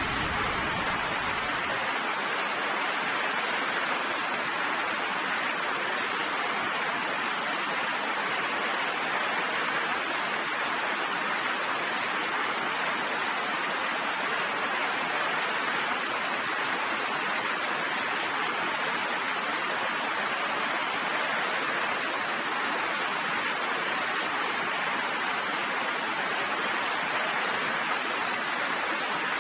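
Steady, even rain pouring down, with the tail of a low thunder rumble dying away in the first second or two.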